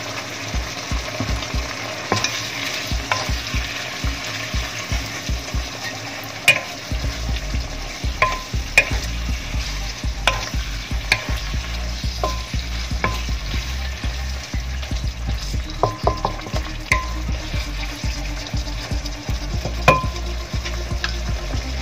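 Food sizzling in a wok while a wooden spatula stirs it, with irregular taps and scrapes of the spatula against the pan over a steady sizzle.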